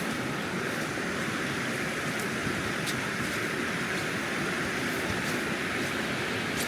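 Steady rushing of a river running over stones.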